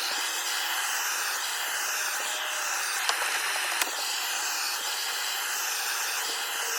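A blowtorch flame hissing steadily as it burns the wooden axe handle, with a couple of faint ticks partway through.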